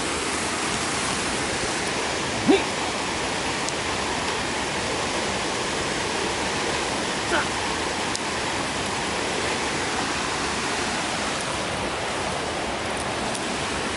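Steady rush of a waterfall and stream, with one brief, short sound rising above it about two and a half seconds in.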